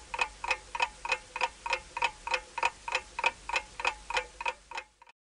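Clock-ticking sound effect for a quiz countdown timer: even, sharp ticks at about three a second, which stop abruptly near the end.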